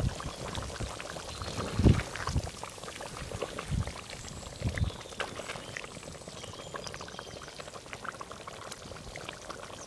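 Thick chicken curry gravy simmering in a pot, with many small bubbles popping, as a wooden spatula stirs through it. There are a few dull knocks in the first five seconds, the loudest about two seconds in.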